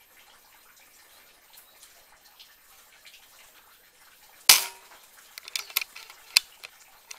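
A single shot from a PCP air rifle: one sharp crack about four and a half seconds in, followed over the next two seconds by a scatter of smaller sharp clicks and taps.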